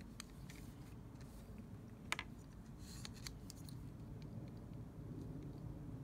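Small tripod handled in the hands, giving scattered light clicks and a brief rustle as it comes out of its fabric sleeve. There is one sharp click about two seconds in, then a quick cluster of clicks.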